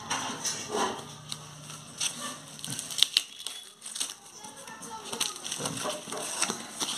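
Hands tearing open a plastic-wrapped cardboard box: rustling and crinkling film with scrapes and rips of cardboard, and a couple of louder snaps about three seconds in.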